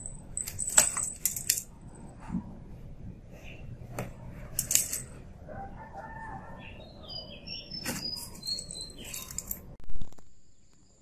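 Kittens pouncing on toys in a cardboard box: cardboard rustling and scraping, with three bursts of small toy bells jingling.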